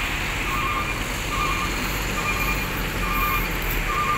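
A vehicle's reversing alarm giving short warbling electronic beeps, about one a second, over the steady low rumble of idling bus engines.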